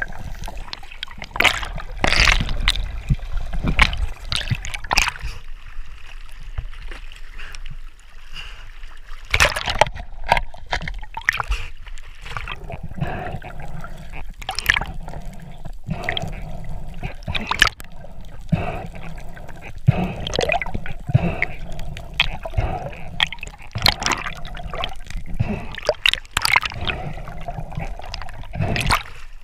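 Underwater water noise heard through a camera housing, muffled and low. Irregular knocks and clicks come from a freediver swimming and hauling a spearfishing float line.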